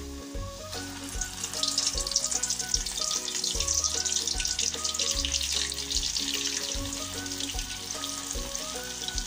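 Hot oil sizzling and crackling as flour-and-egg coated chicken pieces go into a wok to deep-fry. The sizzle swells about a second in and keeps going. Background music with a steady bass plays underneath.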